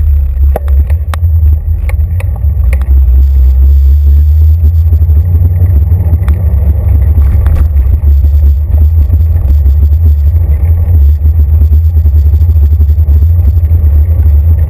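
Bicycle tyres rolling on city pavement, the rolling noise carried through the handlebar into a handlebar-mounted camera: a loud, steady low rumble with scattered knocks from bumps. It cuts off suddenly at the very end.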